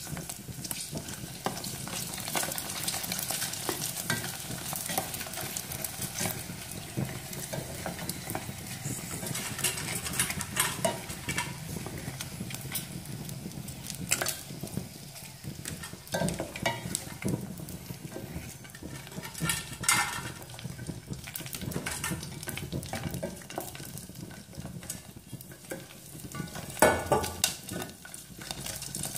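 Hot cooking oil sizzling in a stainless steel pot as prawn crackers puff up in it. Chopsticks click and scrape against the pot now and then, with the loudest knock near the end.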